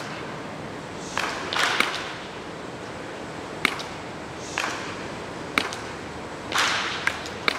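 Baseball bat swung in soft-toss batting practice: whooshes of the swings and sharp cracks of the bat striking the ball, about every two seconds.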